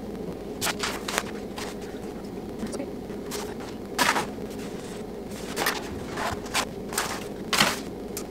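A sheet of self-adhesive wallpaper and its paper backing crinkling and crackling as they are peeled apart and handled. The crackles come irregularly, about ten in all, with the loudest about four seconds in and again near the end.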